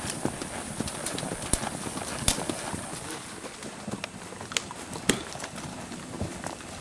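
Horses walking on a dirt trail, their hooves clopping irregularly, with a few sharper clicks standing out.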